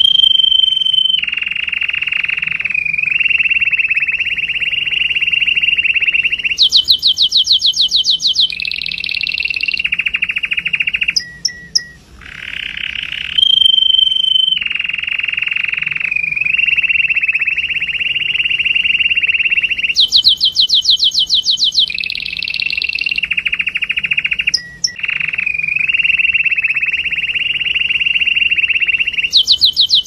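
Red-factor canary singing a long, near-continuous courtship song of rolling trills: mostly a steady mid-pitched trill, broken twice by faster, higher trill passages (about a quarter of the way in and two-thirds in) and again near the end, with only brief pauses.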